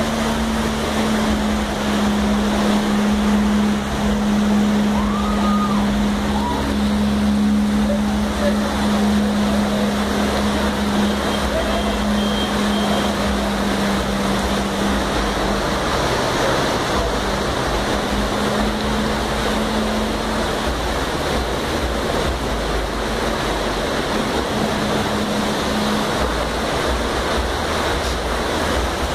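Heavy rain pouring down and muddy floodwater rushing across a street, with cars splashing through the flooded road. A steady low hum runs under it for about the first half and comes back twice later.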